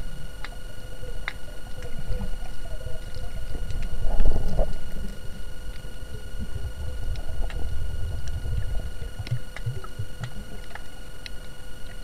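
Underwater camera's own sound: a low rumble of moving water against the camera, with faint scattered clicks and a thin steady electronic whine. The rumble swells louder about four seconds in.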